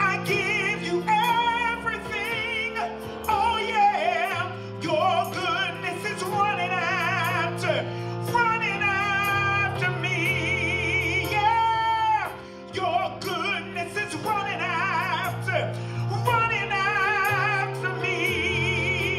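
A man sings a slow gospel worship song into a handheld microphone. His melody wavers with heavy vibrato and drawn-out, mostly wordless runs, over sustained accompaniment chords. About twelve seconds in, one long note slides downward.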